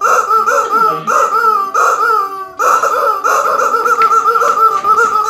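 Yellow rubber squeeze chicken squawking at one fixed pitch: four separate half-second squawks, then, from about halfway through, a fast-warbling run of rapid squeezes with no break.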